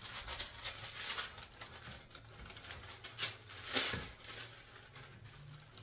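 A sheet of paper crinkling and rustling as it is handled: a run of quick, fine crackles, with a louder rustle a little before four seconds in.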